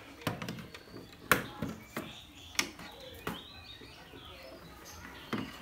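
Small clicks and taps as test-meter probes and wires are handled against a blender motor's windings and terminals, about five sharp ones spread through, with faint bird chirps in the background.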